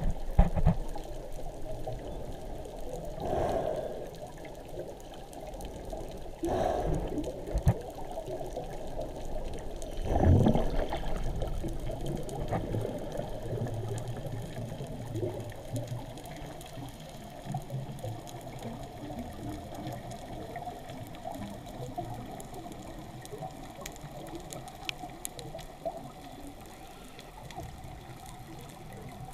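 Muffled underwater water noise heard below the surface, a low churning wash. Three louder swells come about three, six and a half, and ten seconds in, and after that it settles to a steadier, quieter wash.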